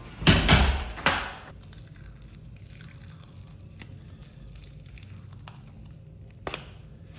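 A tattoo bandage being peeled off the skin: a loud tearing, crinkling rustle in the first second and a half, then a quieter stretch with one more short rustle near the end.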